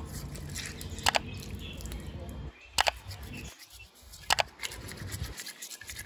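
Small plastic bird-drinker cup being handled and scrubbed with a toothbrush, with three sharp plastic clicks about a second, three seconds and four and a half seconds in, and lighter brushing ticks after.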